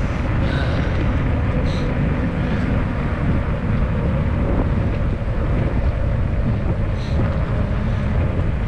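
Steady wind rush on the microphone of a camera mounted on a moving bicycle, with the rumble of the tyres on asphalt underneath.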